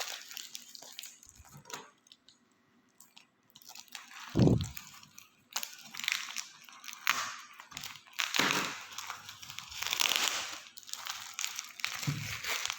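Plastic parcel packaging crinkling and tearing as it is opened by hand, in irregular rustling bursts, with a brief pause and one dull thump about four seconds in.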